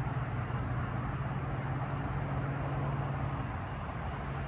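Steady low mechanical hum under even background noise, with a thin, steady high whine above it and no distinct events.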